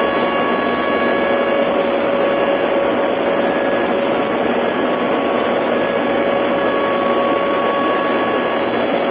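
Loud, steady radio static hiss with the narrow sound of an AM broadcast, with a faint steady whistle tone in it that drops out about two seconds in and comes back.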